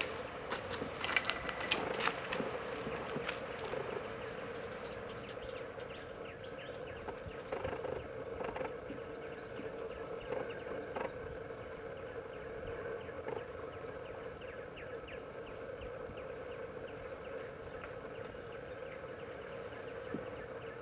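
Steady open-water ambience: a constant insect-like drone with many faint ticks. In the first few seconds come louder sharp splashy noises, fitting spot-billed pelicans' feet and wings striking the water as they land.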